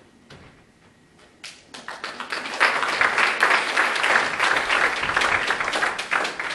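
Audience applause that starts about two seconds in, holds steady as a dense patter of many hands clapping, and dies away near the end.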